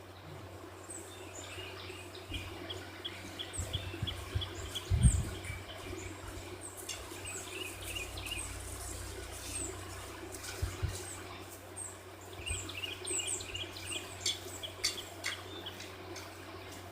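Wild birds chirping and calling outdoors: short high chirps again and again, with rapid runs of repeated notes twice, over a steady low hum and a few low thumps.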